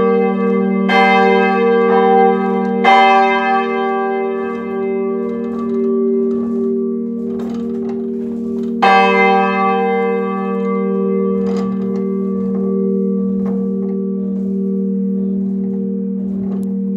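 Large bronze church bell, the 700 kg g' bell cast by Friedrich Wilhelm Schilling in 1962, swinging down after being switched off. Its clapper strikes about every two seconds at first, then once more strongly about nine seconds in, and after that softer and irregularly, while the bell's deep hum rings on between strokes.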